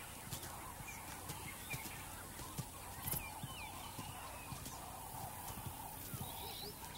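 Faint wild birds calling in short, scattered chirps over a steady low hiss, with a few soft ticks.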